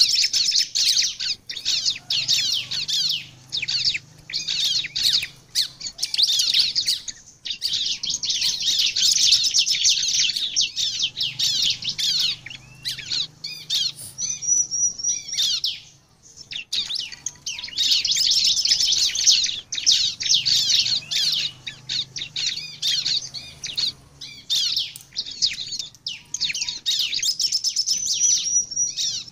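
Bar-winged prinia (ciblek) singing hard: long runs of rapid, sharp high chirps broken by a few short pauses, with a thin high whistled note about halfway through and again near the end.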